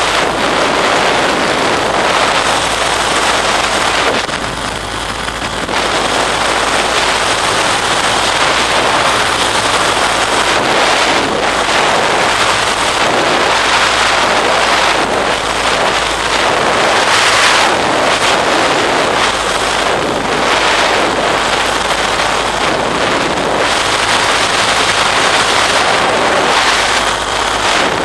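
Steady rushing wind buffeting the microphone of a camera carried aloft in flight, with a faint low steady hum underneath. It eases briefly about four seconds in.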